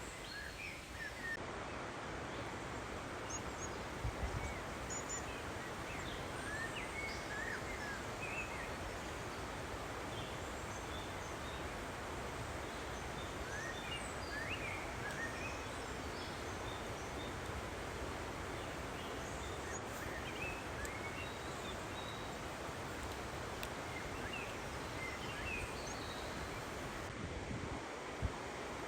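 Steady outdoor background hiss with small birds chirping briefly and repeatedly throughout, and a couple of faint knocks.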